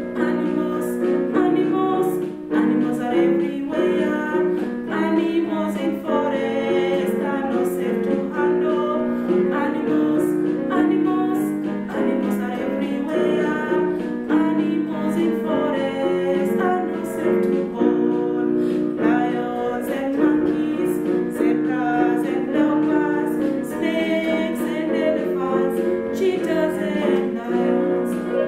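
A woman singing a children's song over instrumental backing with a steady beat.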